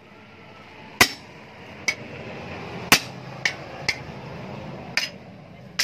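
Hammer blows on a steel punch held with tongs against a steel workpiece on a wooden block. There are about seven sharp, ringing metallic strikes at an uneven pace, some heavy and some lighter.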